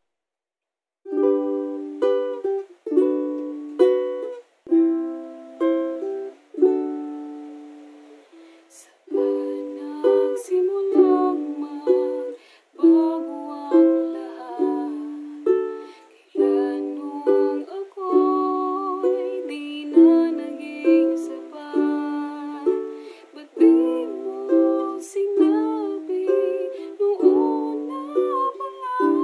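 Ukulele chords struck one at a time and left to ring for about the first nine seconds, then strummed more steadily while a woman sings along.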